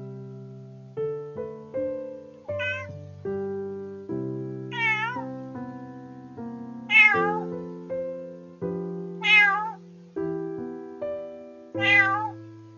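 Soft piano music with a cat meowing five times, about two seconds apart, each call short and wavering in pitch.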